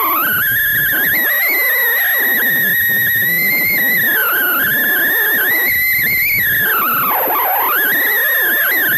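Cessna 172's stall warning horn wailing without a break, its pitch wavering up and down and dipping low about seven seconds in: the wing is close to its stalling angle.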